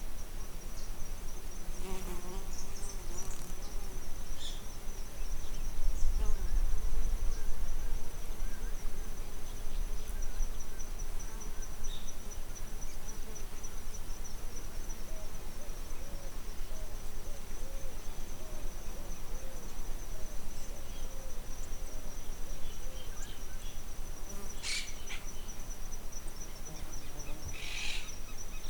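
A steady, high-pitched insect trill pulsing quickly, with a few short bird chirps near the end. Low wind rumble runs underneath and swells about six seconds in.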